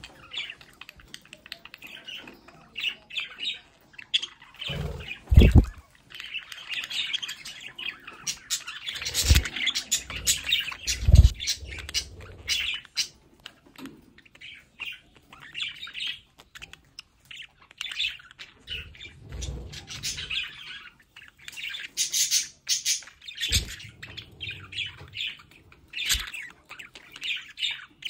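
Several budgerigars chattering and chirping: a busy, unbroken stream of quick high chirps and warbles. A few dull low thumps come through the chatter, the loudest about five and eleven seconds in.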